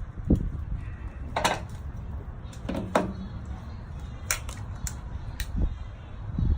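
Wind rumbling steadily on the microphone, with a few short sharp cracks and clicks scattered through.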